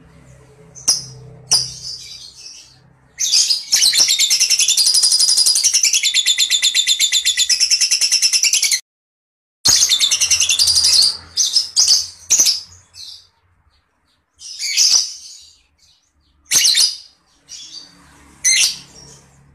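Lovebird calling loudly in shrill, high-pitched bursts. A long, rapid trilling chatter (the 'ngekek') runs for about five seconds and breaks off abruptly. After a moment of silence, short separate shrill calls follow.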